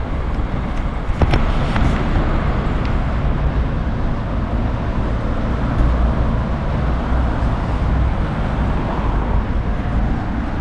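Street traffic noise: a steady rumble of road vehicles passing, with a couple of sharp clicks between one and two seconds in.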